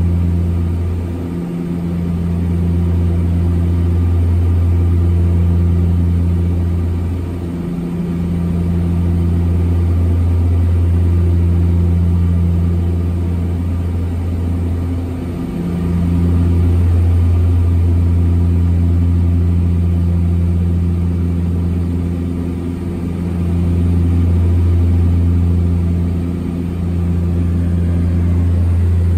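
DHC-6-300 Twin Otter's Pratt & Whitney PT6A turboprop engines and propellers in climb power, heard inside the cabin as a loud, steady low drone. The drone swells and dips in loudness every few seconds.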